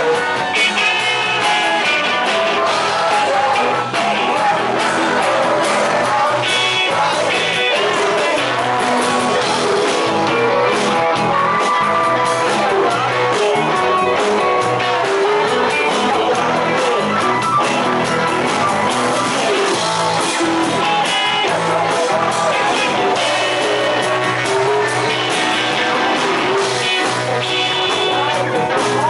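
Rock and roll song with a lead vocal and electric guitars.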